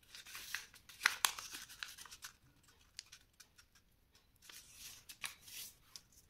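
A sheet of white paper rustling and crackling as hands fold its corners to the centre and press the creases flat, with a few sharp crisp crackles about a second in and a longer rustle near the end.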